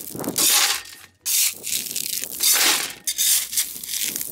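Steel shovel blade scraping and digging into a pile of small rounded gravel, the stones crunching and rattling, in a few separate scoops.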